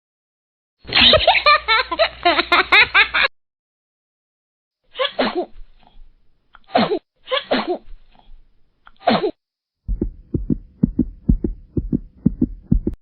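A string of short meme sound-effect clips separated by silences. First a couple of seconds of pitched, voice-like sound. Then four short separate vocal bursts, and then a quick run of short pulses, a few a second.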